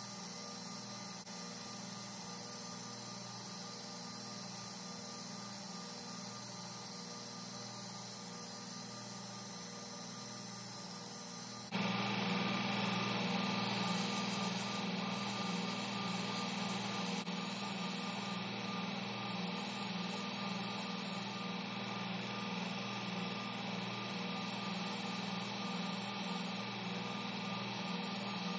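Belt grinder running steadily, its motor humming, while a steel knife blade is ground against the moving belt on the contact wheel. The sound steps louder about twelve seconds in.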